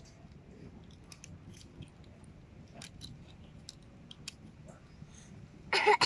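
Small plastic Rubik's cube being twisted in a child's hands: scattered light clicks as its layers turn. Near the end comes one short, loud vocal sound from the child.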